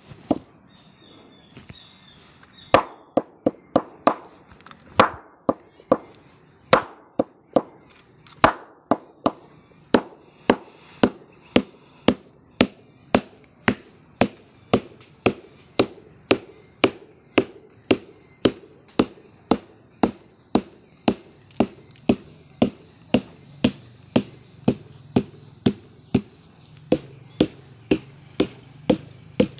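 A mallet beating the young flower stalk of a sugar palm: the first beating of the stalk, a step that readies it for sap tapping. It starts about three seconds in with a few quick knocks, then settles into a steady beat of about one and a half knocks a second, over a steady high drone of insects.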